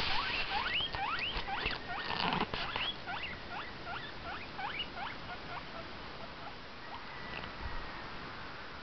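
Guinea pig squeaking: a rapid run of short rising squeaks, about three a second, that dies away about five seconds in.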